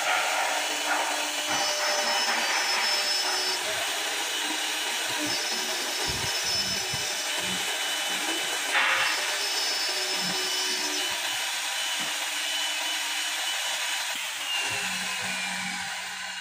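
CNC wood lathe cutting a spinning wooden blank into a profiled spindle: steady motor whine with the noise of the cutters chipping the wood. Near the end a falling whine as the machine winds down.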